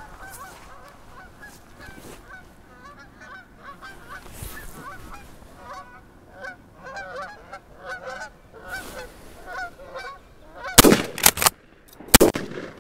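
A flock of geese honking as it flies up and passes overhead, many short calls overlapping. Near the end, several shotgun shots go off in quick succession at the flushed geese.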